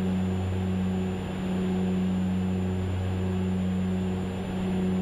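Cockpit drone of a de Havilland Canada DHC-6 Twin Otter's two Pratt & Whitney PT6A turboprops and propellers at climb power after takeoff. It is a steady low hum with a deeper tone beneath it and a faint high whine.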